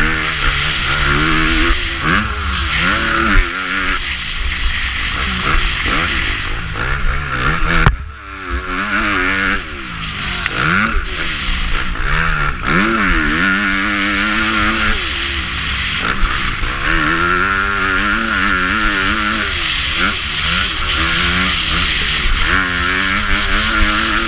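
A 450 motocross bike's engine revving hard up and down through the gears under race throttle, its pitch rising and falling over and over, with heavy wind rush on the microphone. About eight seconds in there is a sharp knock, and the engine briefly drops off before pulling again.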